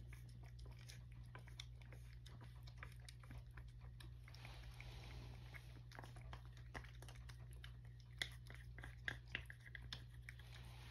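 Cat eating wet food from a dish: soft chewing and lip-smacking clicks, with a few louder clicks near the end.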